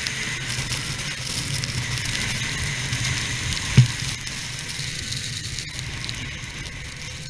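1991 Yamaha Phazer II snowmobile's two-stroke engine running under load through deep powder, under a steady hiss of blowing snow and wind. A single sharp thump comes just under four seconds in.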